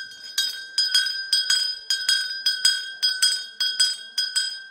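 A bright clink struck over and over at the same pitch, about three times a second, like a spoon tapping a glass or a small bell.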